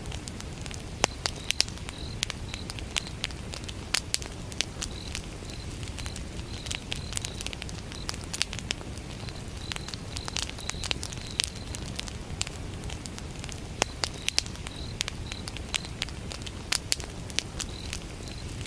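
Wood fire burning, with frequent sharp crackles and pops over a steady low rumble. A cricket chirps in short, evenly repeated high pulses throughout.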